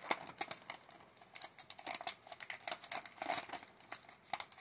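Cardboard packing pieces being handled and pulled apart by hand: an irregular run of light rustles, scrapes and clicks of card on card.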